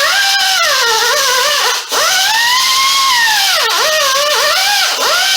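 Power tool spinning a small abrasive wheel against the rusty steel bearing bore of a wheel knuckle, scouring the snap ring groove clean. Its whine bogs and recovers in pitch as it is pressed into the metal, dropping away briefly twice.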